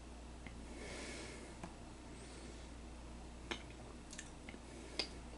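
Faint sounds of a person drinking soda from a small plastic cup: a soft breath about a second in, then a few light clicks and taps.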